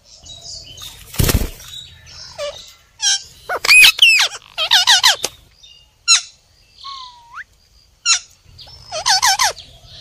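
Caged ringneck parakeets calling: clusters of shrill chirps and squawks that swoop up and down in pitch, with a single rising whistle in between. A loud rustle about a second in.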